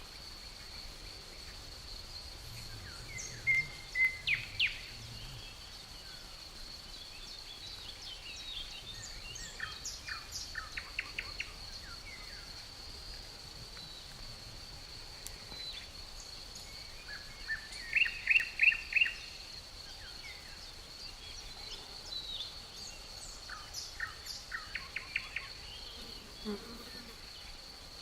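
Crickets give a steady, unbroken high trill under songbirds calling in short phrases. The birds sing at a few points, loudest in a quick run of five or so notes about two-thirds of the way through.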